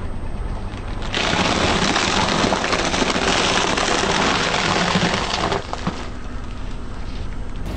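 Packaged puffed rice cakes crackling and crunching under a slowly rolling car tyre: a dense crackle that starts about a second in and stops abruptly after about four and a half seconds, over a low steady engine hum.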